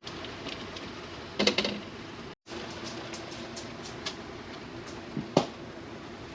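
Steady background noise in a room with a few light knocks and clicks, the sharpest about a second and a half in and again past five seconds, and a brief dropout about two and a half seconds in.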